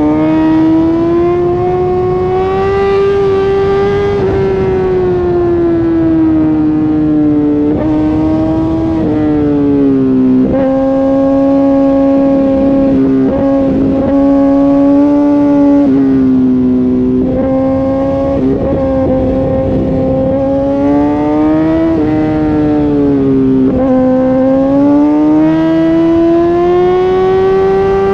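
Suzuki GSX-R1000R sport bike's inline-four engine running at high revs under load, its pitch climbing slowly, then dipping and stepping with throttle and gear changes several times, over a rush of wind.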